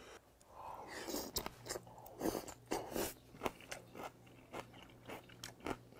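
A person chewing a mouthful of raw goby (unjeori) salad dressed in spicy vinegar sauce, picked up by a clip-on microphone, with irregular crisp crunches.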